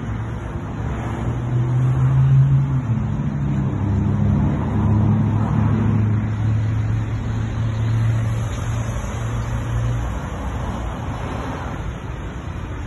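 Motor vehicle engine running close by: a low hum that rises, settles steady, and fades out about ten seconds in, over a haze of road noise.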